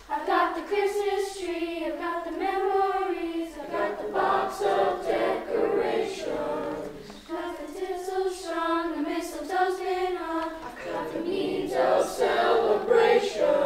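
A school choir of young voices singing together in long, held phrases with short breaks between them.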